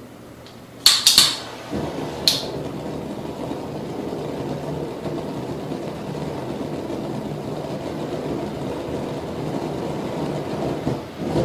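A lighter clicks a few times about a second in and once more a second later. Then a flame burns with a steady rushing noise as a fire vortex rising out of the top of a smoke-filled soap bubble.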